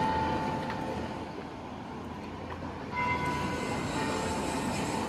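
A train running on rails: a steady rumble with a thin high tone that fades out and comes back about three seconds in, then cuts off abruptly at the end.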